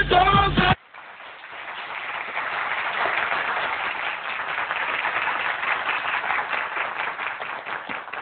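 Sung music cuts off abruptly within the first second, and applause of many hands clapping rises, holds and slowly fades.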